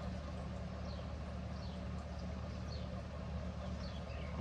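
Steady low hum under a faint hiss, with a few faint, short, falling chirps about a second apart.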